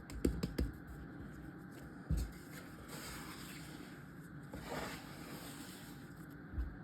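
Soft handling sounds of sourdough dough being worked by hand on a floured surface: a few dull thumps with faint brushing and squishing in between.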